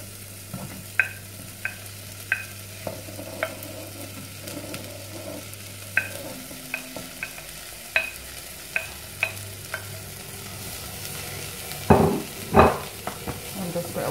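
Chopped onion and garlic scraped with a silicone spatula off a plate into a hot stainless steel saucepan, the pieces falling in with light clicks over a frying sizzle. Two louder knocks come near the end.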